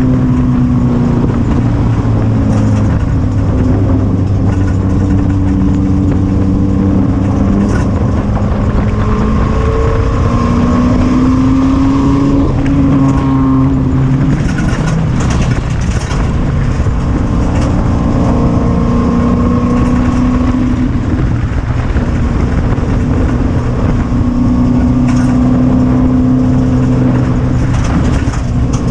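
Four-cylinder race car engine heard from inside the cockpit under racing load, its pitch climbing and dropping again and again as the throttle comes on and off. A burst of rattling knocks about halfway through, and a few more near the end.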